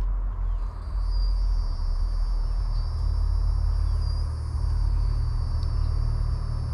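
High, steady insect trill from crickets or similar insects, coming in about half a second in, over a steady low rumble.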